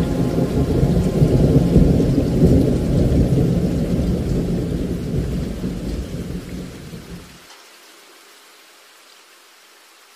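Thunder rumbling over heavy rain. The rumble fades and cuts off about seven seconds in, leaving a much quieter rain hiss.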